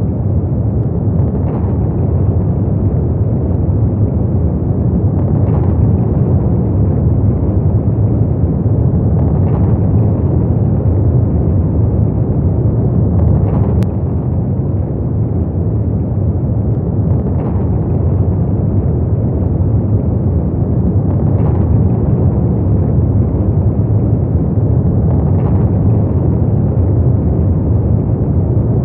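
A steady deep rumbling drone of ambient sound design, with a faint soft pulse about every four seconds.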